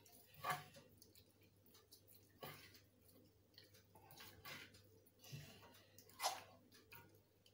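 Hands rubbing a wet spice marinade into whole raw chickens: faint, irregular wet squelches, a handful of short ones.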